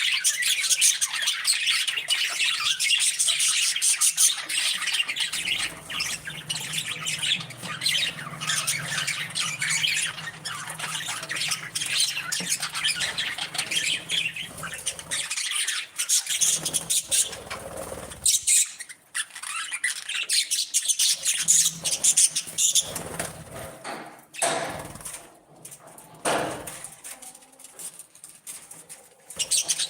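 Budgerigars chattering and chirping continuously, a dense flock-like warble of rapid high notes with occasional harsher squawks, thinning out in the second half.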